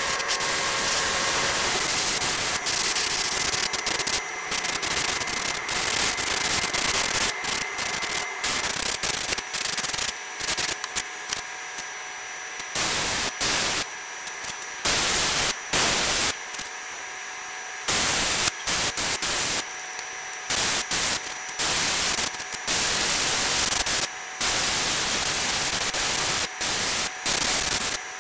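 Airbrush spraying paint: a steady hiss of air, nearly unbroken at first, then switched on and off in short bursts of about a second through the second half.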